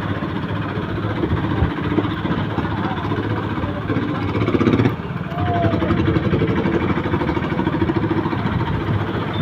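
Motorcycle engine running as it rides slowly through town traffic, with a short dip in level about five seconds in.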